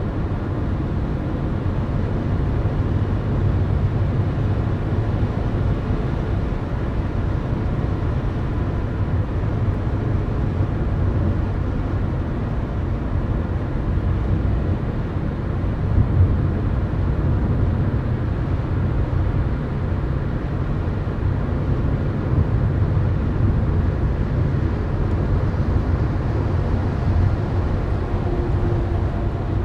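Steady low rumble of road and engine noise inside a car's cabin at highway speed, with one brief louder bump about halfway through.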